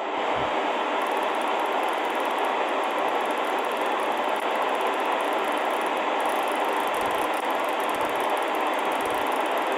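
Sangean ATS-909X2 shortwave receiver's speaker giving a steady hiss of band noise in upper sideband mode near 14.224 MHz, in the 20-metre amateur band, as the tuning is nudged in small steps; no station comes through clearly.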